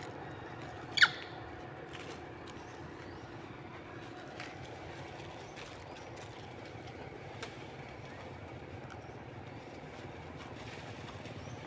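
One short, sharp, high-pitched squeak about a second in, over a steady low background hum, with a couple of faint ticks later on.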